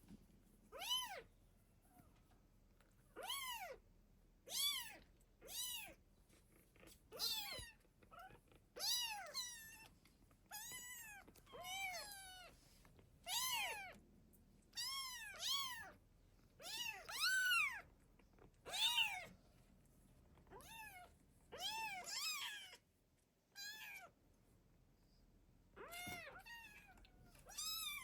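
Cats meowing over and over: short, high-pitched meows that rise and fall in pitch, about one every second or two.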